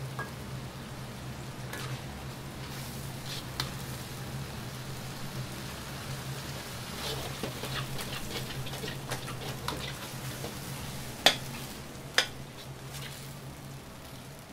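Shrimp and vegetables sizzling in a wok over a gas burner, with a steady low hum from the range and a ladle clinking and scraping against the wok. Two loud metal clanks about a second apart come late on.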